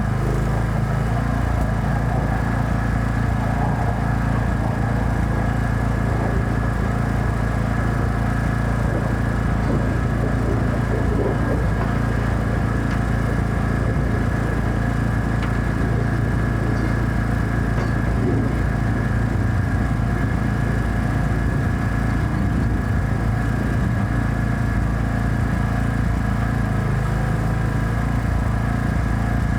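Generator engine running steadily at a constant speed, powering a welding machine.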